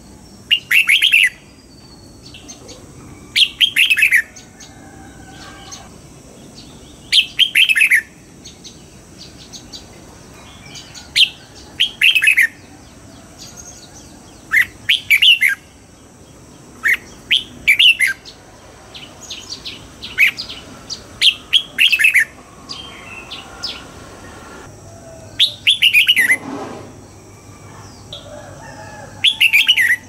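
Red-whiskered bulbul singing: about nine short, loud phrases of quick falling whistled notes, coming every few seconds. A faint, steady high-pitched hiss runs behind.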